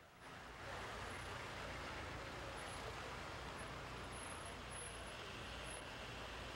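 Road vehicles running: a steady low engine rumble with road noise, coming in just after the start and settling at an even level by about a second in.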